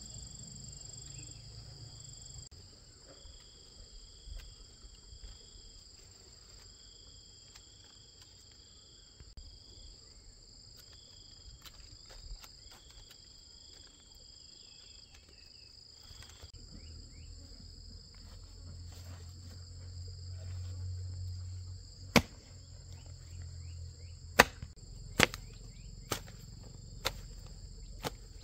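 Steady outdoor insect chorus, with one insect chirping in pulses during the first half. In the last few seconds come six sharp knocks, about one a second.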